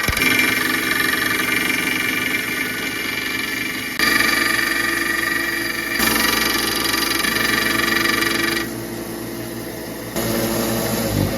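A power tool's motor running steadily with a whine, heard in several short clips cut one after another.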